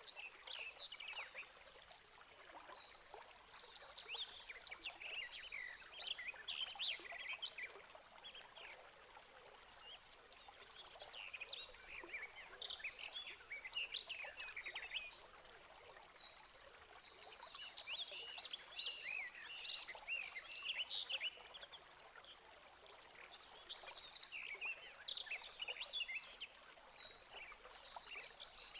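Faint, high, rapid cheeps and crackles from newly hatched great tit nestlings in the nest box, coming in clusters every few seconds over a steady hiss.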